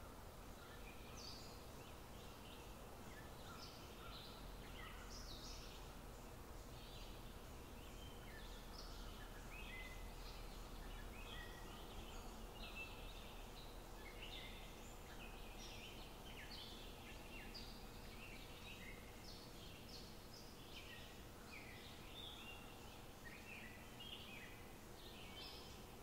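Faint birdsong: many small birds chirping in short notes without a break, over a steady low hum.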